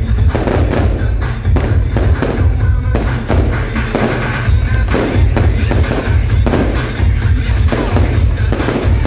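Aerial fireworks bursting over and over, many sharp bangs, over loud music with a heavy, steady bass.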